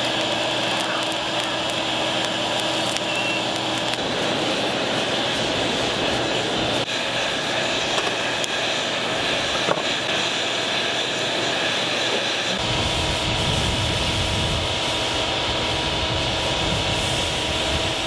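Electric blower running steadily, forcing air through a charcoal forge fire to heat a crucible of aluminum scrap to melting: a loud, even rush of air with a faint hum. A deeper rumble joins about thirteen seconds in.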